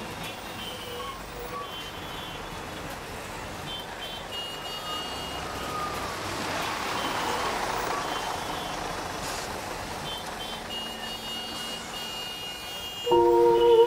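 Road traffic noise, with a vehicle passing that swells and fades in the middle and short high beeping tones now and then. Music comes in near the end.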